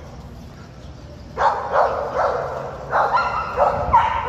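A pit bull barking repeatedly, starting about a second and a half in, a quick run of barks and yips.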